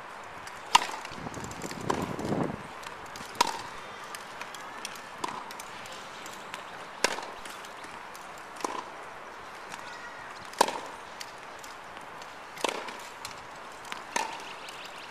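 Tennis balls being struck with a racket and bouncing on a hard court, sharp pinging hits coming about every two seconds, some louder than others. A brief low rumble comes about a second in.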